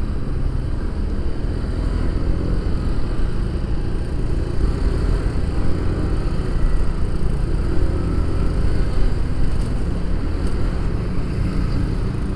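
Automatic scooter riding slowly in heavy traffic, heard from a microphone on the bike: a steady rumble of engine and road noise.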